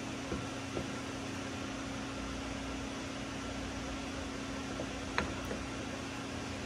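Steady hum of an ice maker running, loud enough to fill the room, with a few faint light clicks over it.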